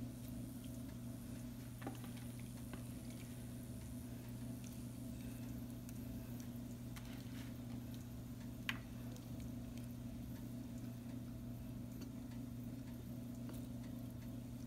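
A steady low hum, with faint clicks and soft scrapes of a silicone spatula spreading stir-fried vegetables over rice in a glass baking dish; one sharper click about nine seconds in.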